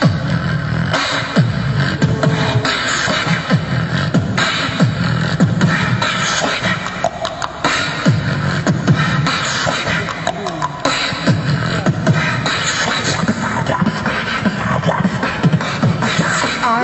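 Beatboxing through a handheld microphone and small street amplifier: a continuous, dense rhythm of mouth-made bass thumps and sharp clicks.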